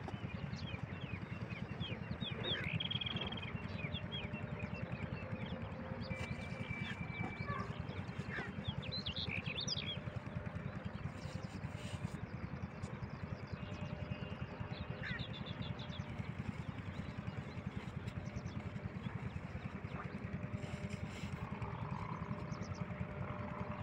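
8 hp single-cylinder diesel pump-set engine running steadily, a rapid low thudding beat, while small birds chirp now and then.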